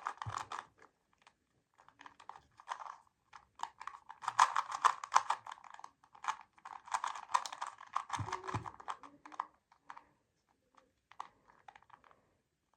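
Plastic puzzle cube being turned quickly by hand, a rapid run of small clacking clicks in bursts, with a brief low thump about eight seconds in.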